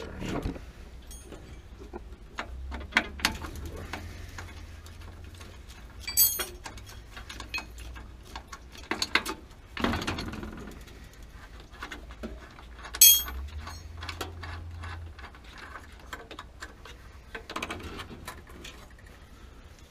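Hand-tool work on a gas water heater's control valve fittings: scattered small clicks and taps of a wrench on metal. Two brighter, ringing metal clinks about six and thirteen seconds in.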